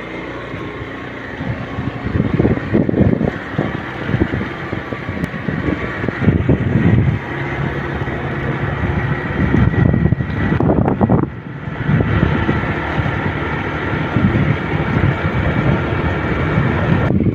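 Motorcycle engine running while riding along, with wind buffeting the microphone in uneven gusts.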